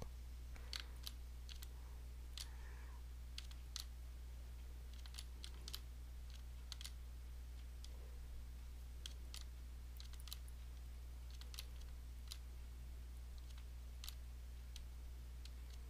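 Sparse, irregular clicks from a computer mouse and keyboard, over a steady low hum.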